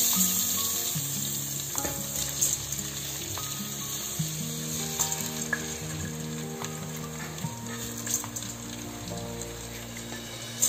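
Chinigura rice pouring into hot ghee in a rice cooker pot and sizzling, the sizzle strongest as the first grains go in, with a few small ticks of grains and spatter. Soft background music with held notes plays underneath.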